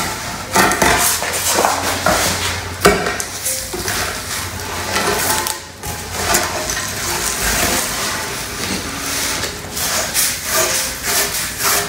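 Heavy cement leaf casting being turned over off its sand mold: concrete scraping, sand shifting and plastic sheeting rustling, with a sharp knock about three seconds in.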